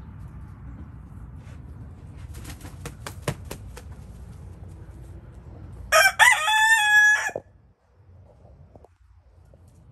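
Rooster crowing once, a cock-a-doodle-doo about a second and a half long, starting about six seconds in; it is the loudest sound. A few sharp clicks come a couple of seconds before it.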